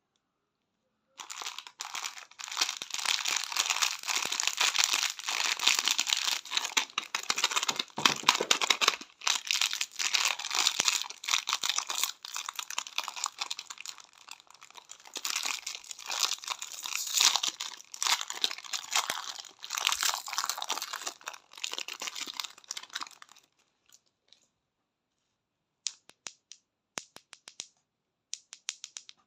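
Candy wrappers crinkling and tearing as lollipops and chocolates are unwrapped: a dense, continuous crackle that stops about twenty-three seconds in, followed by a few short, sharp crinkles near the end.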